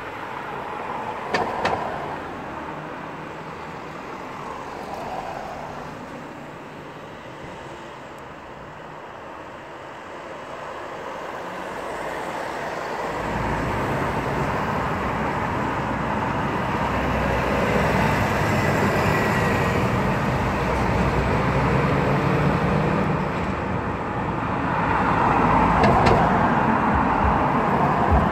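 Road traffic on the street below: cars passing with tyre and engine noise. About halfway through, a deeper engine rumble comes in and the traffic grows louder.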